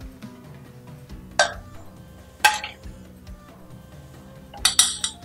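Background music, with a metal spoon clinking against stainless steel bowls as dressing is spooned onto the salad: two single clinks, then a quick cluster of clinks near the end.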